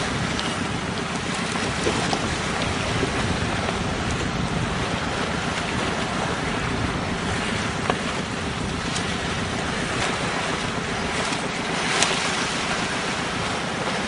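Steady rush of open sea water with wind buffeting the microphone, broken by a few faint brief clicks.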